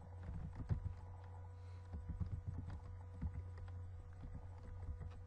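Computer keyboard being typed on: a run of irregular light key clicks, over a steady low electrical hum.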